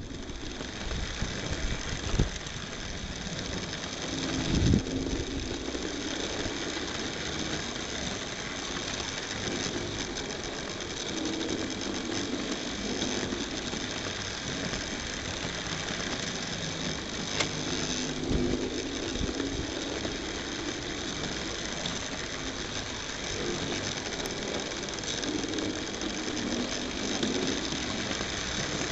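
Tri-ang Hornby model diesel shunter and its train running on model railway track, heard from a wagon riding behind it. A steady whirring and rattling of the small electric motor and wheels on the rails, with a few sharper clicks.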